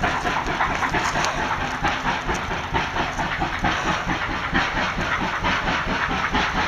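A steam train, hauled by locomotive 3801, passing close by out of sight, with a steady, fast, even clatter and a hiss.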